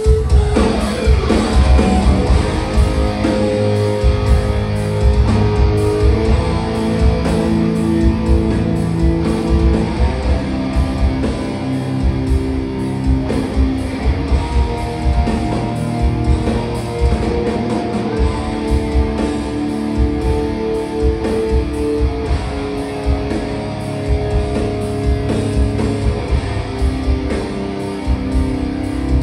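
Doom metal band playing live: distorted electric guitars hold long, slow notes over bass and a steady pounding of drums.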